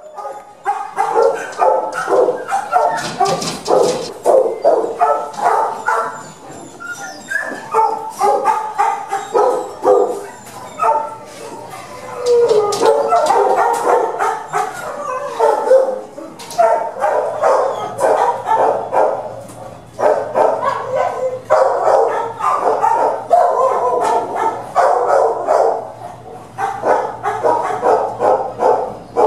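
Shelter dogs in their kennels barking almost without pause, several voices overlapping.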